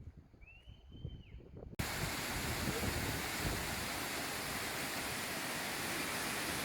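Quiet forest with one short rising-and-falling whistle, then about two seconds in an abrupt cut to the steady, loud rush of the Todtnau Waterfall's falling water.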